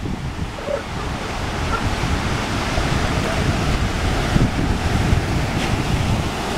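Wind buffeting the microphone in an unsteady low rumble, over the steady wash of ocean surf.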